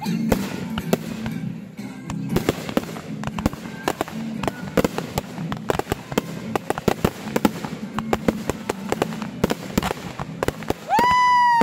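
Consumer fireworks going off in quick succession, a dense run of sharp bangs and crackling reports, over music playing in the background. Near the end a loud whistling tone rises, holds and falls away in under a second.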